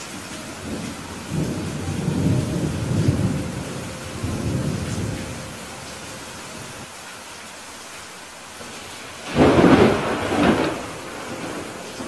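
Steady rain falling, with a low rolling rumble of thunder in the first half and a sudden sharp thunderclap about nine seconds in, cracking twice before fading.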